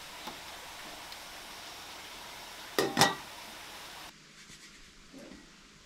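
Two quick metal clinks about three seconds in, a utensil against a stainless steel pot, over a steady faint hiss; a softer tap comes just before. After about four seconds the background turns quieter.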